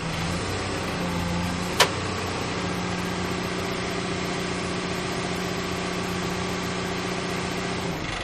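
Caterpillar excavator's diesel engine idling steadily, with one sharp click about two seconds in. The engine's steady tone drops away near the end.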